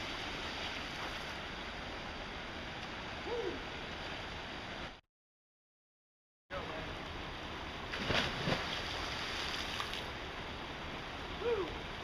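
Steady rush of water from a small river waterfall, with a person jumping into the river and splashing about eight seconds in. A short call that drops in pitch is heard twice. The sound cuts out for about a second and a half midway.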